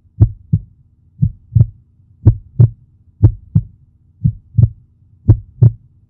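Heartbeat sound effect: a low double thump, lub-dub, repeating about once a second, six beats in all.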